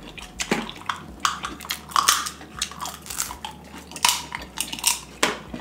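Two people eating snow crab leg meat with smacking mouth sounds: irregular short clicks, bites and chewing, a few per second.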